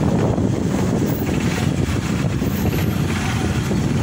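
Steady rushing rumble of wind buffeting the microphone while riding on a motorcycle, with the motorcycle's running noise mixed in.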